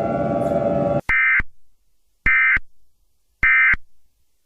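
Emergency Alert System End of Message code: three identical short, buzzy digital data bursts about a second apart, marking the end of the alert. Before them, a steady droning tone over noise cuts off abruptly about a second in.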